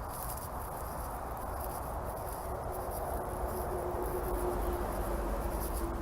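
High, steady chirring of insects in the grass over a low rumbling outdoor noise, with a faint steady hum coming in about halfway through.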